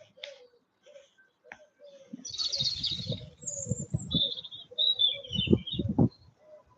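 Birds calling: a run of short, low-pitched cooing notes repeating throughout, joined in the middle by a small bird's high chirps. Low rumbling on the microphone sits under it from about two seconds in and is the loudest part.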